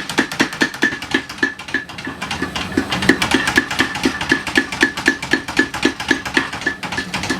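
A 25 kg Sakamoto mechanical belt hammer striking hot steel in a fast, even run of blows, about five a second, each with a short metallic ring, as the tang of a san-mai knife blank is drawn out.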